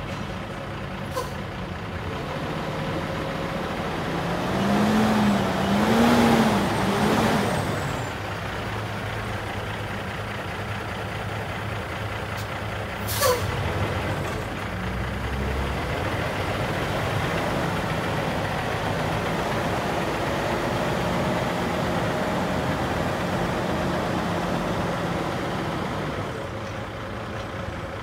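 International 9400i semi tractor's Cummins ISX 450 inline-six diesel running as the truck is driven slowly, its revs rising and falling three times about five to eight seconds in. A short sharp air-brake hiss comes about thirteen seconds in, then the engine runs steadily.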